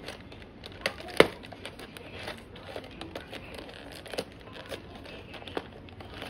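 Cardboard box of Big Roll seaweed snacks being handled and pried open by hand: crinkling and rustling with scattered sharp clicks, the loudest snap about a second in.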